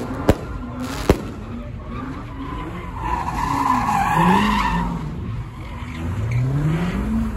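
Cadillac CTS coupe doing donuts: the engine revs up and down, the tires squeal loudly from about three to five seconds in, and the revs climb steadily near the end. Two sharp firework pops come in the first second or so.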